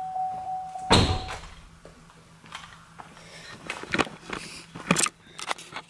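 A car's warning chime sounds steadily, then the door is shut with a heavy thud about a second in and the chime stops just after. Scattered light clicks and knocks follow.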